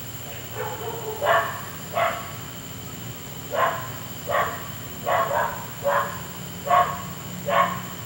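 A dog barking over and over in single barks, about nine of them at roughly one a second with a short pause after the first few, over a steady hum.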